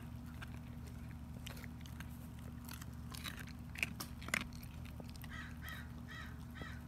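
German Shepherd chewing and crunching the bone of a raw chicken drumstick, in irregular wet cracks with two sharper snaps about four seconds in. A bird calls several times in quick succession near the end.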